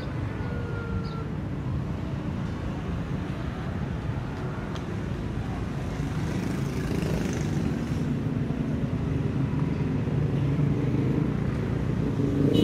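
Road traffic running steadily, getting louder near the end as a vehicle comes closer.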